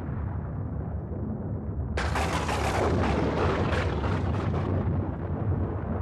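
Thunder: a low rumble, then a sharp crack about two seconds in that crackles and rumbles on.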